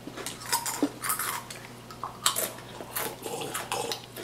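Person chewing a crisp Pringles potato chip: a run of sharp, irregular crunches.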